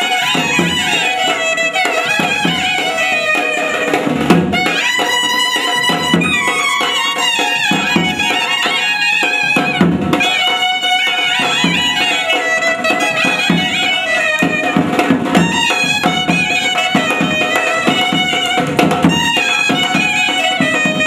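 Brass band playing a traditional tune, with clarinets carrying an ornamented, wavering melody over brass and a regular drum beat.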